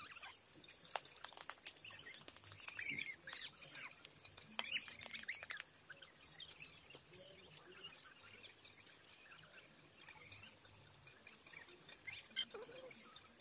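Small birds chirping, with scattered light clicks and scrapes; a brief cluster of sharp clicks comes about three seconds in.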